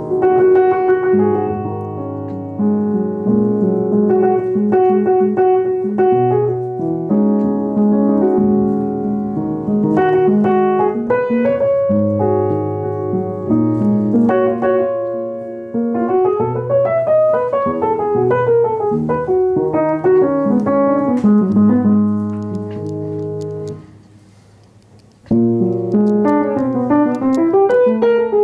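Yamaha piano played in sustained chords, with rolling runs up and down the keys. The playing drops away for about a second and a half near the end, then resumes.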